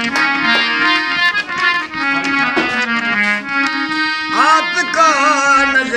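Hand-pumped harmonium playing a melody over held reed notes. About four seconds in, a man's voice joins, singing with a wavering, ornamented pitch.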